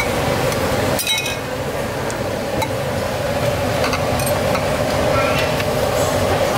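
Metal ladle clinking against a stainless steel stockpot and soup bowls while broth is ladled out, a few sharp clinks over a steady background hum and street noise.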